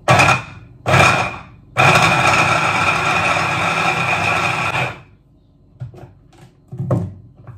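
Hand-held immersion blender grinding brynza cheese in a tall beaker: two short pulses, then about three seconds of steady running with a constant whine before it stops.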